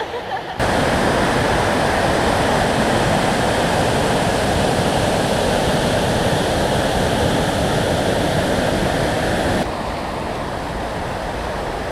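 Steady rush of a waterfall's falling water. It cuts in abruptly just after the start and drops to a lower level a couple of seconds before the end.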